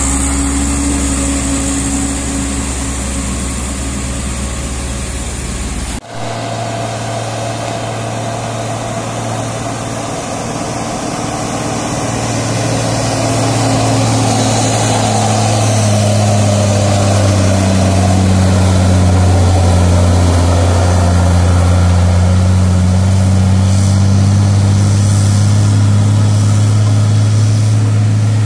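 Diesel engines of heavily loaded trucks working hard up a steep climb, loud and steady. There is a cut about six seconds in, then another truck's engine grows louder as it comes up the grade toward the microphone and holds.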